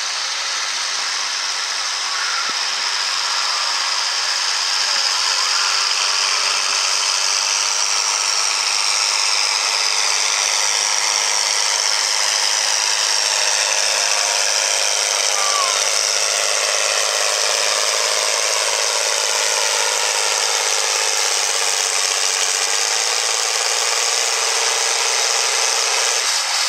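John Deere 4430 farm tractor's turbocharged six-cylinder diesel pulling a weight-transfer sled under full load, its pitch slowly dropping as the sled's weight bears down. The engine sound drops off abruptly near the end as the pull ends.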